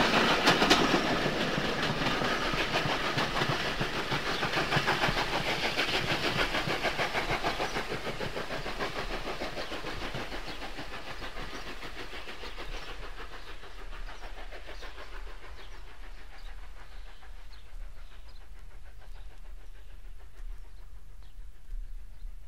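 'King Arthur' (N15) class 4-6-0 steam locomotive working an express up a 1 in 93 gradient, its exhaust and the train's wheel clatter fading steadily as it draws away. Only faint clicks remain in the second half.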